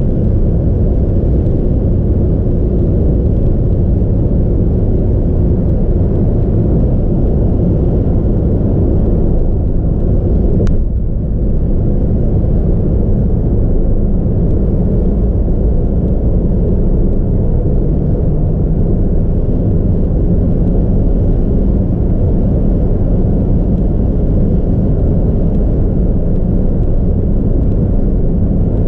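Steady low rumble of a car driving at highway speed, road and engine noise heard from inside the cabin. A single sharp click about ten seconds in.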